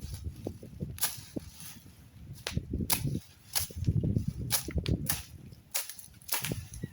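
A series of about a dozen sharp, irregular clicks or snaps, over bursts of low rumbling noise.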